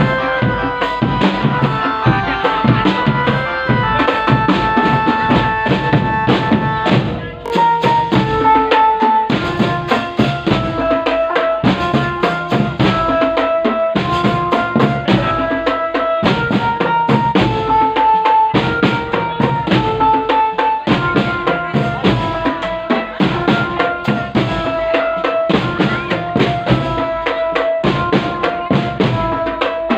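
Drum band music: drums and percussion beating in a steady rhythm under a melody of held notes, with a brief drop in level about seven seconds in.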